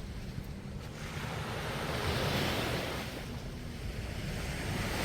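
Small sea waves washing up onto a sandy beach, one wash of surf swelling and fading about two seconds in and another building near the end, with wind buffeting the microphone as a low rumble.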